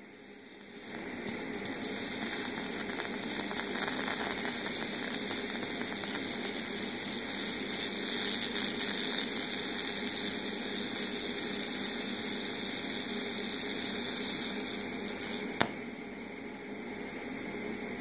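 DC TIG welding arc from a Stahlwerk multiprocess inverter welder burning steadily with a high, even hiss. It starts about half a second in and stops about fifteen seconds in, after which a softer hiss remains.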